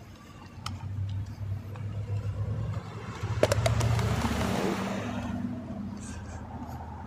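An SUV drives past close by, its engine and tyres growing louder to a peak about halfway through and then fading away, over a steady low rumble of street traffic.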